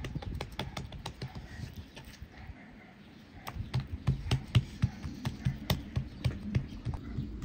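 Fingers patting and pressing a piece of dough flat on a wooden cutting board: soft scattered taps at first, then a steady patting of about three or four a second from about halfway.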